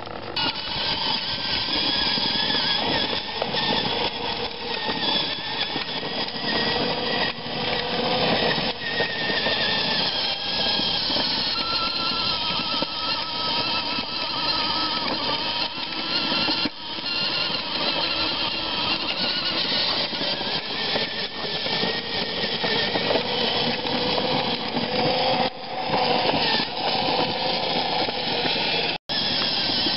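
Battery-powered ride-on toy ATV's electric motor and gearbox whining steadily as it drives over concrete, with a wavering pitch. The sound is broken by a few abrupt cuts.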